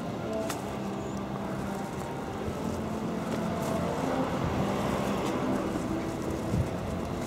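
A brass band playing faintly in the distance, its held notes changing pitch every second or so, under a steady rush of outdoor noise that swells in the middle.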